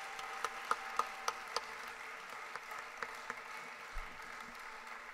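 Audience applause dying away, with scattered single claps standing out as it thins.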